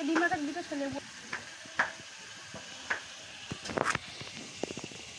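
Katla fish being scaled against the curved blade of a boti: scattered short, crisp scrapes and clicks as the scales come off, with a quick cluster of strokes a little under four seconds in.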